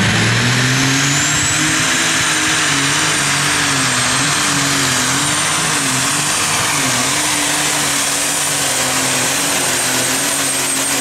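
Super stock pulling tractor's turbocharged engine at full power hauling the weight-transfer sled. Its pitch rises at the launch and then wavers up and down under load. A high turbo whistle climbs in the first second and holds.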